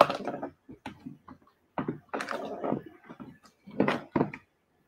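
Kitchen handling noises from a measuring cup and mixing bowl knocking and scraping on the counter as flour is measured into the bowl. They come in three irregular clusters, about a second apart to start, then about two seconds apart.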